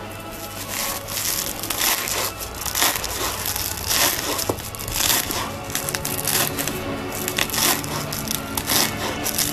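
Kitchen knife chopping fresh dill stalks on a wooden cutting board: a run of irregular crisp crunching cuts, about two a second, with music underneath.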